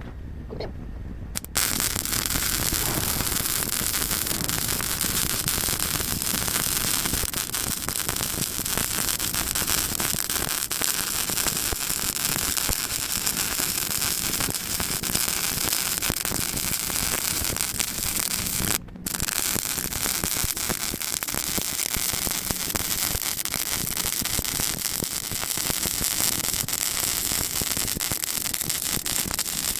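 Lincoln 180 MIG welder's arc crackling steadily as a weld bead is run on new sheet metal. It starts about a second and a half in, stops briefly about two-thirds of the way through, then picks up again.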